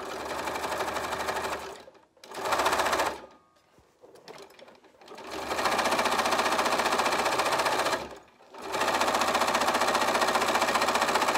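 Bernina Aurora 440 QE sewing machine stitching through coiled fabric rope, running in four stretches with brief stops between them: two short runs in the first few seconds, then two long runs broken by a short pause a little after the middle.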